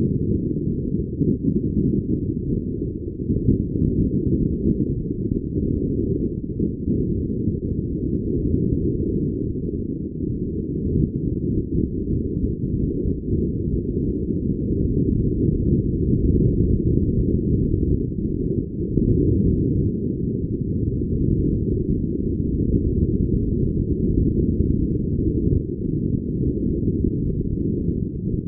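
Steady, muffled low rumble of wind and water noise on a sailing yacht under way, with no distinct events.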